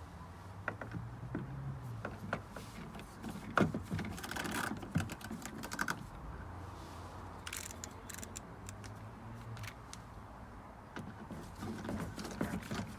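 Irregular light clicks and rattles of a hand screwdriver and plastic trim being handled while a small Phillips screw is driven in, over a steady low hum.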